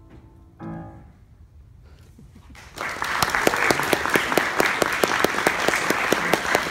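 A grand piano chord struck about half a second in and left to ring out, followed from about three seconds in by applause with many quick claps.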